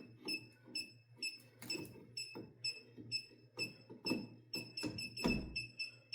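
Circuit breaker finder receiver beeping as it is swept over the breakers in a panel: a rapid series of short high beeps, quickening near the end as it homes in on the breaker feeding the outlet. A few sharp knocks are mixed in.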